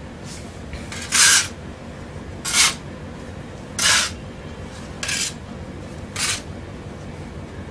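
Steel putty knife scraping across a terrazzo floor, gathering dry wall putty powder into a heap. There are five short scrapes, about one every second and a quarter.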